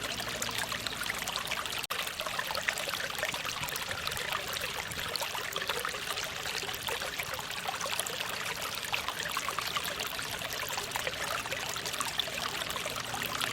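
Small mountain stream flowing steadily over rocks: a continuous, even rush of trickling water with fine splashy detail, with a momentary dropout about two seconds in.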